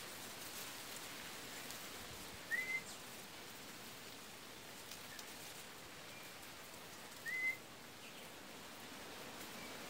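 Campo troupial (corrupião) giving short whistled notes: two clear ones, each rising and then held briefly, about five seconds apart, with a few fainter notes between, over a steady background hiss.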